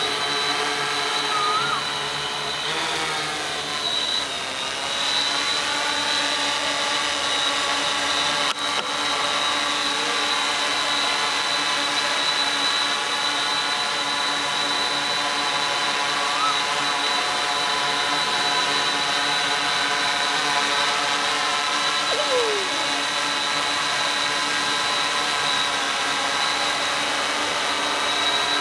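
Multirotor drone hovering close by: a steady, loud buzz of spinning propellers and electric motors with a high whine, its pitch shifting for a couple of seconds early on as the craft manoeuvres.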